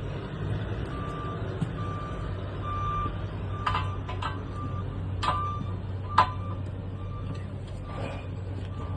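A heavy machine's reverse alarm beeping at a steady rate, a bit faster than once a second, over a running engine's steady hum. Three sharp knocks come in the middle, the last one the loudest.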